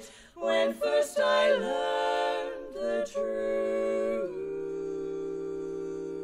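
Female barbershop quartet singing a cappella in close four-part harmony. After a short breath at the start, the voices move through a phrase, then about four seconds in they settle onto a chord and hold it steadily.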